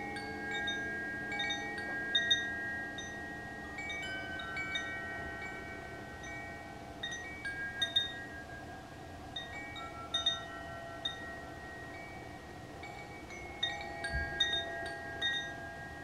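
Koshi chime swinging, its clapper striking the tuned rods inside the wooden tube: soft clusters of ringing tones every few seconds that overlap and hang on between strikes.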